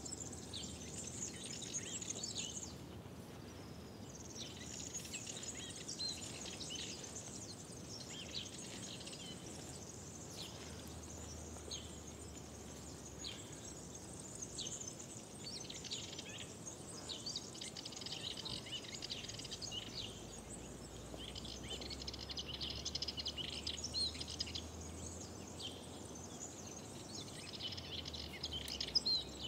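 Several songbirds singing and chirping, with short, overlapping high phrases throughout, over a faint steady low background noise.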